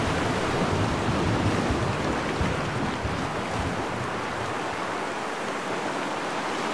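Steady rushing noise of the sea, with a low rumble that eases off about four seconds in.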